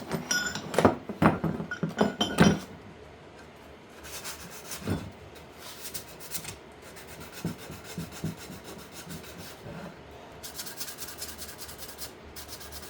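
Scrap poplar boards being handled and worked by hand. There are several sharp knocks with a faint ringing clink in the first two and a half seconds, then quieter rubbing and scraping of wood, and a quick run of rasping strokes near the end.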